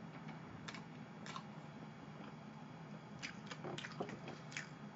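Close-miked chewing of chocolate cake: soft wet mouth clicks and smacks, a couple about a second in and a quick cluster about three to four and a half seconds in, over a low steady hum.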